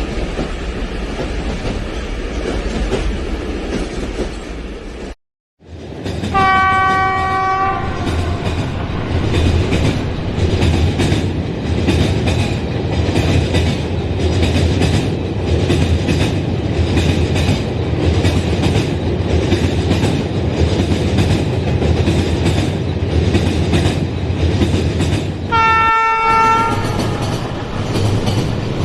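A moving train rumbles and clatters steadily, and a horn sounds twice, once about six seconds in and again near the end, each a blast of about a second and a half. The sound cuts out briefly just after five seconds.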